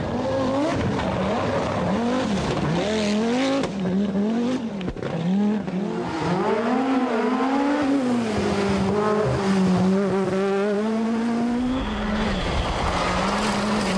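Group B rally car engine revving hard, its pitch climbing and dropping again and again with gear changes and throttle lifts, then holding fairly steady for a few seconds before shifting again near the end. Some tyre squeal is mixed in.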